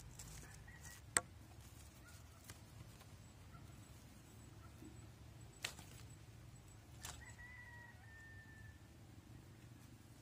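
Faint outdoor ambience with a few sharp clicks scattered through it, and a faint high call held for about a second and a half past the middle, typical of a bird.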